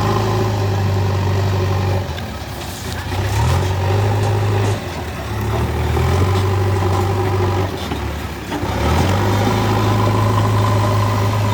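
JCB 3DX backhoe loader's diesel engine running under working load; its note sags three times and climbs back up as the load and revs change.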